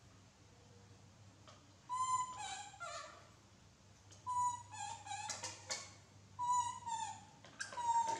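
Baby macaques giving short, high cooing calls that fall in pitch, several of them, some in quick pairs, starting about two seconds in.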